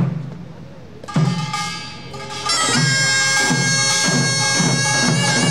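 Korean pungmul band starting up. A couple of separate drum strokes come first. About two and a half seconds in, a taepyeongso (Korean shawm) enters loud and reedy, its notes wavering near the end, over regular drumbeats.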